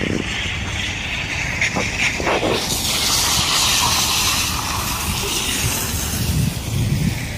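Wet outdoor noise: a steady low rumble of wind on the microphone, with a hiss that swells about three seconds in and slowly fades.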